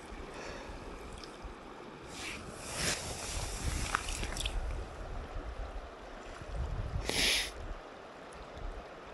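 Fast river current rushing over rocks, a steady watery rush, with a few short, close noises on top, the loudest about seven seconds in.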